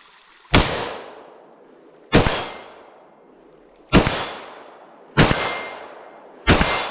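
Five single rifle shots from an AR-15, spaced one to two seconds apart, each a sharp crack that dies away over about a second.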